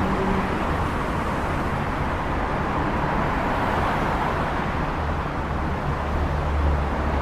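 Steady motor-vehicle noise: a dense low rumble with a hiss above it, swelling slightly in the low end near the end.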